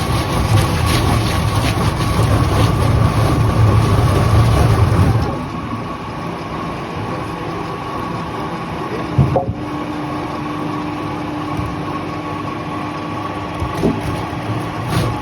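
Heavy machinery engine running steadily. It is louder with a deep hum for the first five seconds, then settles lower, with a single thump about nine seconds in.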